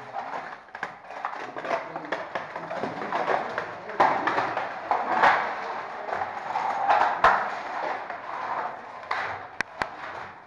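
Scraping, scuffing and sharp knocks on hard ice as someone moves through a narrow glacier ice cave, with rustling close to the microphone.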